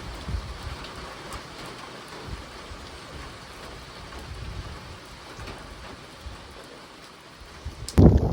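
Steady rain falling, an even hiss with scattered drop ticks and light wind gusts on the microphone. Near the end it jumps suddenly to a much louder low rumble of wind on the microphone.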